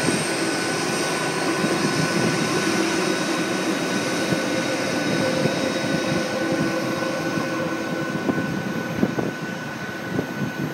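Jet engines running at taxi power, heard from inside an airliner cabin: a steady rushing noise with a few steady high whining tones, easing slightly near the end.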